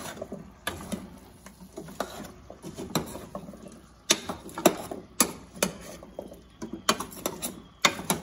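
Spoon stirring chicken, potato and carrot chunks in a stainless steel pot, knocking and scraping against the pot's sides in an irregular run of sharp clinks, the loudest a little past the middle and near the end.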